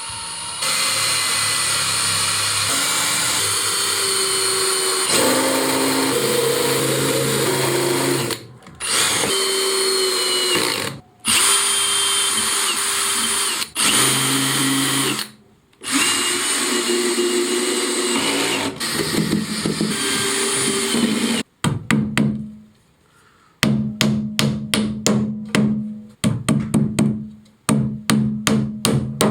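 A power drill runs in several long spells into plywood, its pitch shifting with the trigger. It stops and starts several times, then pulses in quick short bursts near the end, as when driving screws.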